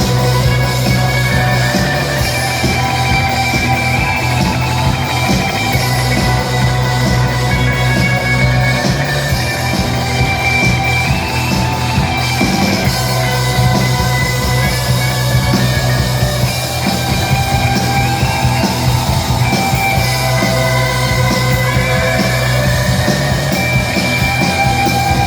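Instrumental rock music with guitar and a steady low bass line, no vocals.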